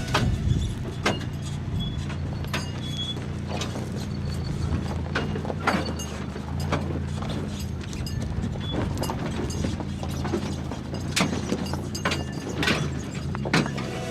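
A four-wheel drive running over a rough dirt track: a steady low engine drone with irregular knocks and rattles as the vehicle bounces over bumps.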